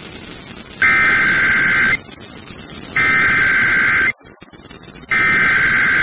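Emergency Alert System SAME header: three bursts of two-tone digital data, each about a second long with about a second's gap between them. The header is the coded opening of an alert, here ahead of a tornado warning message.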